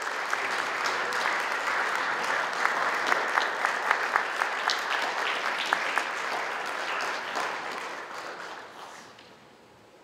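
Audience applauding, with single claps standing out, dying away over the last few seconds.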